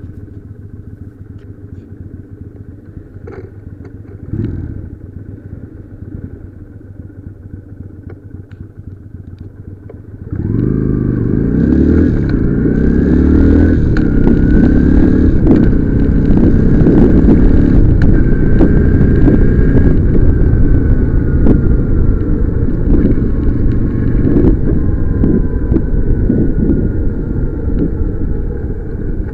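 Motorcycle engine running at low revs, then about ten seconds in pulling away and accelerating loudly, its pitch climbing and dropping back several times as it shifts up through the gears, before settling into steady cruising.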